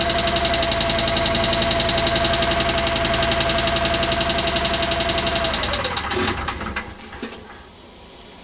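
Onan CCK two-cylinder engine running with a fast, even knocking or tapping. About six seconds in it shuts off: its whine falls away, it gives a few knocks as it runs down and stops.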